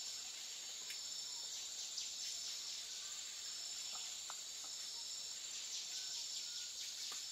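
Tropical rainforest insects buzzing in a steady high-pitched chorus, with a few short chirps.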